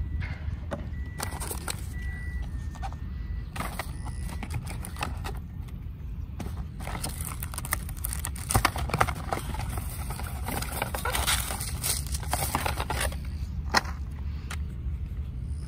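A cardboard box and paper inserts being handled: scattered crackles, rustles and clicks over a steady low rumble.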